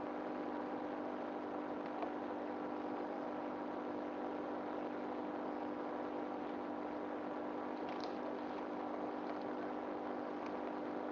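A steady mechanical hum with a few faint clicks, about two seconds in and again near eight seconds.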